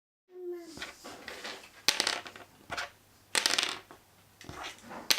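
Small 3D-printed plastic die thrown and clattering to a stop, three times, each a sharp hit followed by a short rattle.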